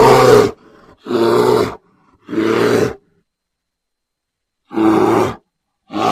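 Grizzly bear roar sound effects: a string of short, deep, growling roars about half a second to a second long each, five in all, the first cut off just after the start and the last starting near the end, with dead silence between them as edited clips.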